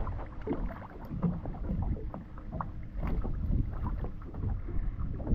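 Wind buffeting the microphone over open water, with scattered small splashes and knocks as a small hooked shark is lifted from the water on its leader.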